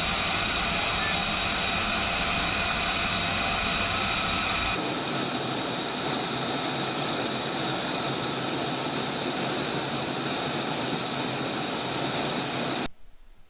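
Steady jet engine noise with a high whine of several fixed tones. It changes abruptly about five seconds in, losing its low rumble, and cuts off sharply near the end.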